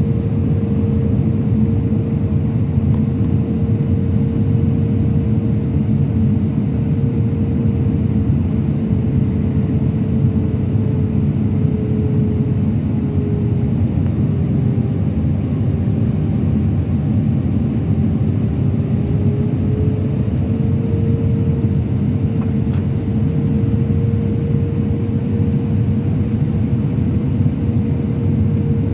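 Airbus A319-100 cabin noise on approach: the steady rumble of the jet engines and airflow, with a steady engine hum that sags slightly in pitch around the middle and rises back again.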